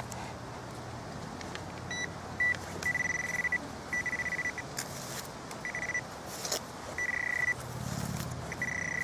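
A metal detector sounding a steady high-pitched target tone in about seven short, uneven beeps as it is passed over a dug plug of soil. This is a strong high-conductivity signal, here from a buried buckle. Short scrapes of soil being handled come between the beeps.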